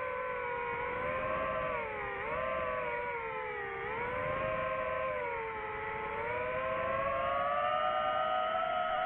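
DJI FPV drone's electric motors and propellers whining steadily, the pitch sagging twice and then slowly climbing as the throttle changes.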